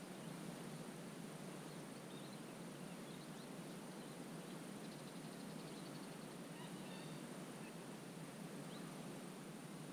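Faint steady outdoor wetland ambience. Scattered short, distant bird chirps sound throughout, with a brief trill about five seconds in and a few quick calls about seven seconds in.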